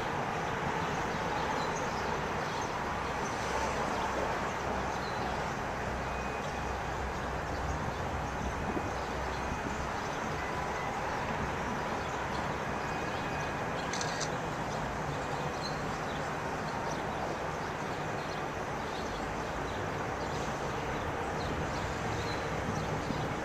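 Steady outdoor background noise: a low rumble under an even hiss, with a few faint bird chirps and one brief tick about two-thirds of the way through.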